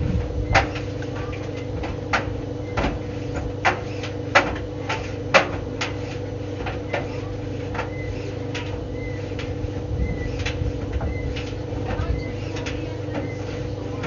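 White Knight tumble dryer running with a steady hum, its drum turning the load of clothes, which knocks against the drum at irregular intervals, more often and louder in the first half.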